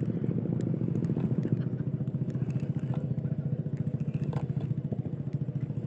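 A small engine running steadily with a fast, even chugging pulse, with a few faint clicks over it.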